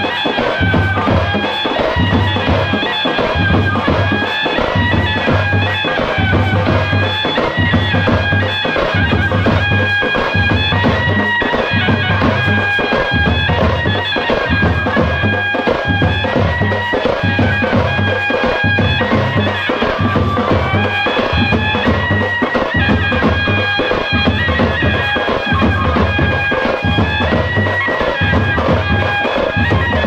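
Music: a reedy wind-instrument melody in held, stepped notes over a steady pulsing bass beat.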